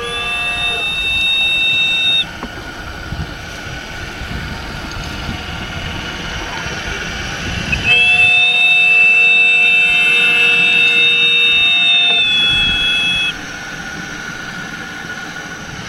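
Ship's steam whistle played by a model boat's sound unit: a blast of about two seconds at the start, then a long blast of about five seconds from near the middle. Each blast holds several steady notes at once, and one note drops out about a second before the long blast ends.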